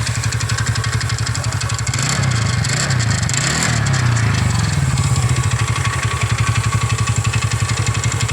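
TVS Ntorq 125 scooter's single-cylinder engine running with a steady pulsing beat. About two seconds in it is blipped: the pitch rises, then settles back to idle a couple of seconds later.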